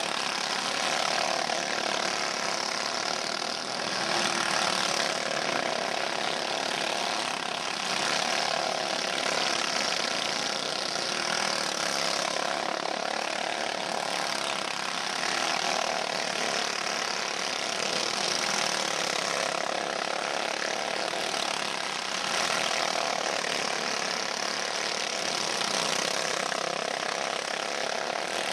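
Several dirt-track go-kart engines running hard as a pack of karts laps the track together, a steady din that swells a little now and then as karts pass close.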